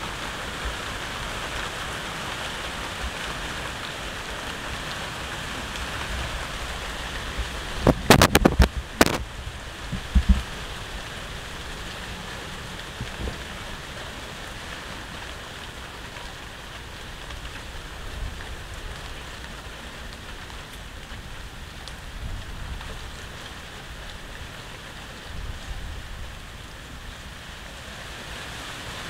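A cat chewing and tearing at a raw fish, with wet crackling over a steady hiss. A cluster of loud sharp knocks comes about eight seconds in, and another about ten seconds in.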